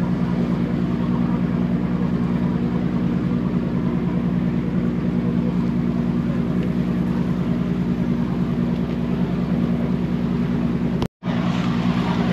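An engine running steadily at constant speed, giving a continuous low drone with a fast even pulse. It cuts out for a split second about eleven seconds in, then carries on unchanged.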